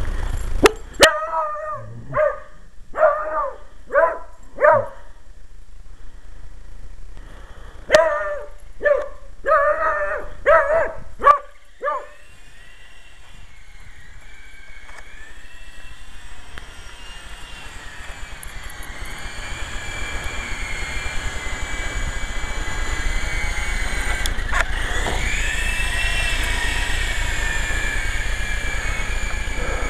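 A dog barks repeatedly in two bouts of short barks over the first dozen seconds. Then the electric motors and rotors of a Syma S033G toy RC helicopter in flight give a steady whine that wavers in pitch, growing louder toward the end.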